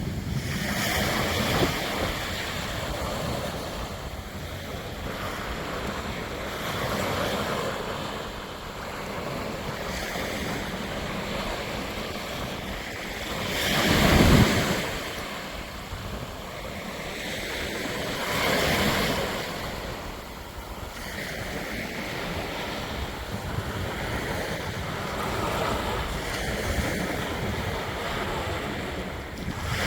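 Strong gusting wind rushing over the microphone. The loudest gust swells about halfway through, and another comes a few seconds later.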